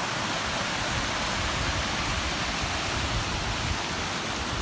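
Waterfall pouring over a mill pond dam: a steady rushing of water with a strong flow.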